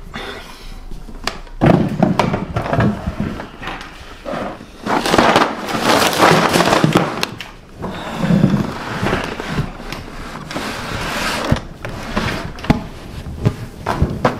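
Knocks, clatter and rustling as things are cleared off a tabletop, crinkly plastic snack bags among them, and a wooden chess set with carved wooden pieces is set down on it, the pieces clacking against the board.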